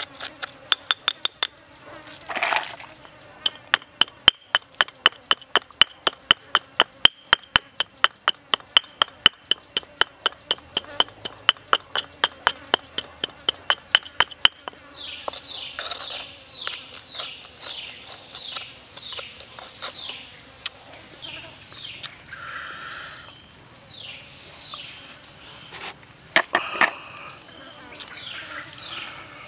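Wooden pestle pounding salt and black peppercorns in a stone mortar: sharp knocks, about three a second, that stop about halfway through. After that comes a run of quick, high, falling chirps.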